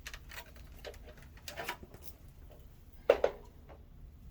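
Scattered clicks and knocks of mobility scooter parts being handled during disassembly, with a sharp double knock about three seconds in.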